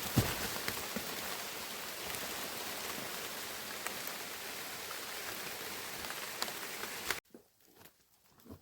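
Heavy rain falling steadily, an even hiss with scattered sharp drop impacts. It cuts off abruptly about seven seconds in, leaving only faint soft knocks.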